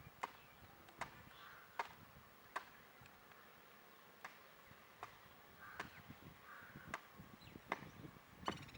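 White-naped woodpecker pecking at wood: single sharp taps roughly one every three-quarters of a second, with a few longer pauses between them.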